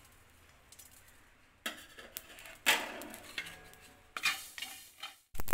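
Clinks and knocks on a stainless steel kadai as mustard seeds go into the dry pan: quiet for the first second and a half, then a few sharp clatters, the loudest near the middle, some with a short metallic ring.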